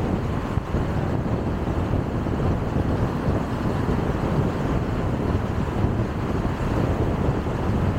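Steady road noise of a car driving along a paved road: a low, even rumble of tyres and wind.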